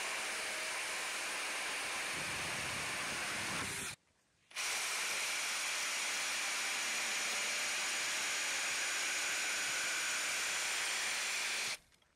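Cordless drill driving a small chainsaw attachment, its chain cutting steadily through a round wooden log. The sound breaks off into silence for about half a second around four seconds in, resumes, and stops abruptly shortly before the end.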